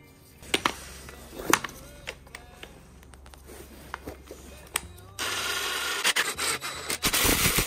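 Scattered metal clinks and knocks from handling a screw-type coil-spring compressor, then, about five seconds in, a DeWalt 20V cordless impact wrench starts hammering loudly on the compressor's screw to compress a strut's coil spring, with a brief break near the end.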